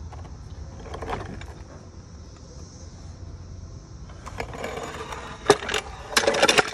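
Metal rattling and clanking from a floor jack being worked to lower it and take it out from under the car, with a sharp clank about five and a half seconds in and a quick run of clanks near the end.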